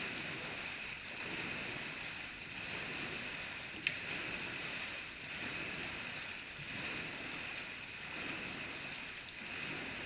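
Dragon boat paddles pulling through the water of an indoor paddling tank, the splashing and churning swelling with each stroke at a training rate of about 40 strokes a minute. A single sharp knock sounds about four seconds in.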